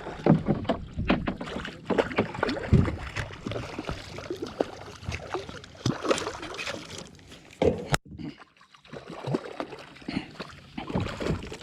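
Knocks, rustling and sloshing water on a kayak. The sound is irregular, with a sharp click and a brief dropout about eight seconds in.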